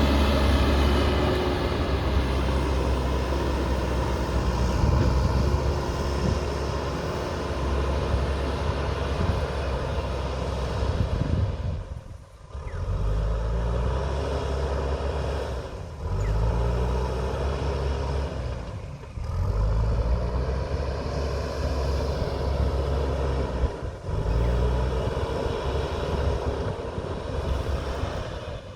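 JCB backhoe loader's diesel engine running steadily under load. From about halfway the sound dips sharply four times, each time coming back with the engine pitch climbing as it revs up again.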